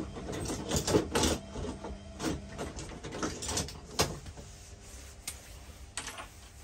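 Plumbing pipe and fittings being handled and positioned: a run of irregular clicks and knocks, busy at first and thinning out after about four seconds.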